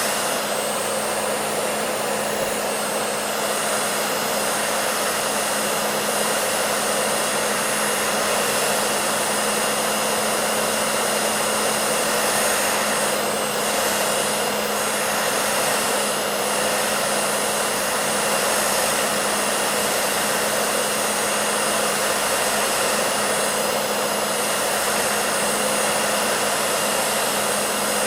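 Hair dryer running steadily: an even blowing rush of air with a constant motor hum underneath.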